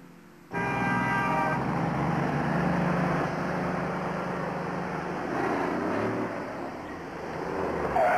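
City street traffic: car engines and passing vehicles, starting abruptly about half a second in after a brief hush.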